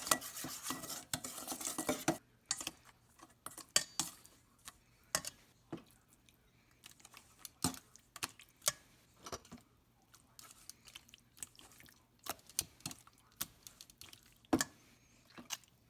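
Pork chops being mixed with their marinade in a dish. First comes about two seconds of continuous wet stirring. Then scattered clinks and taps of a utensil against the dish follow.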